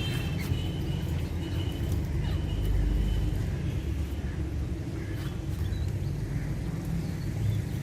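Steady low rumble like a distant vehicle engine or traffic, with a few faint high chirps from parrots in about the first second.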